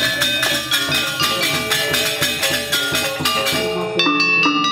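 Sasak gamelan ensemble playing: bronze saron metallophones struck with wooden mallets and rows of kettle gongs, in fast, dense, ringing strokes. Near the end the texture thins to sparser strikes over a held low tone.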